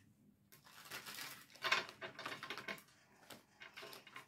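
Tarot cards being shuffled by hand: soft, quick papery riffling and flicking in several short bouts.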